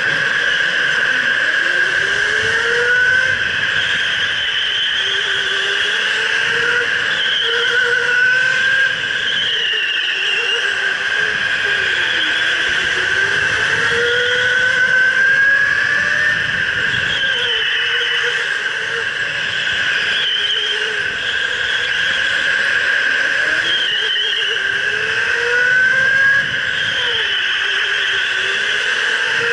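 Electric go-kart motor whining at speed, its pitch rising as the kart accelerates and falling back as it slows, over and over, over a steady whine and hiss from the karting.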